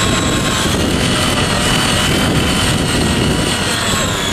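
Small petrol engine of a mini power tiller running steadily, with a whine that wavers slightly in pitch.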